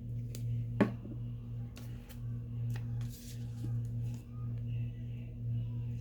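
Soft ambient background music with a low sustained drone that swells and fades slowly, over a few light taps and a paper rustle from hands handling craft paper, the sharpest tap about a second in.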